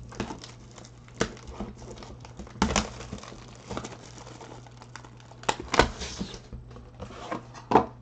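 Plastic trading-card pack wrapper crinkling as it is handled, with a handful of sharp taps and knocks from the cardboard hobby box being moved on the table.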